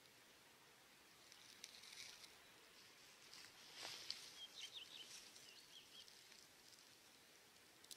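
Near silence: faint outdoor ambience with a few soft ticks, and a brief run of faint, high bird chirps a little past the middle.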